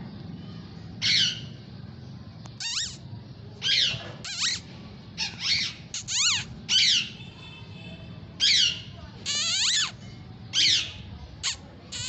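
Indian ringneck parrot squawking: about a dozen short, high calls, each sliding down in pitch, roughly one a second, with one longer call later on.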